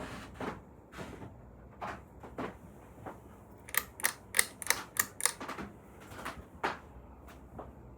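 Ceiling fan running with a faint low hum, under irregular light clicks and a quick run of about six sharp metallic clinks about halfway through.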